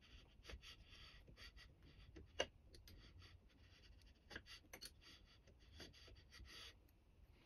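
Faint scratching of a height gauge's scriber drawing a layout line across the coloured end of a metal rod, with small ticks and scrapes of metal on the surface plate. The sharpest tick comes about two and a half seconds in.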